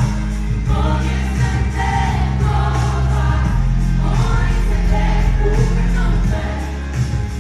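Live pop music: several voices singing together in harmony over a band with a steady bass line and a regular drum beat.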